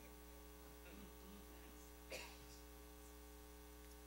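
Near silence: a pause in speech filled by a steady electrical mains hum, with one faint brief noise about two seconds in.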